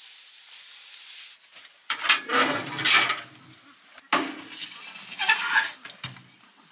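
A metal fire shovel scraping and clinking through ash and embers in a metal firebox, in two spells about two seconds apart, after a second or so of steady hiss.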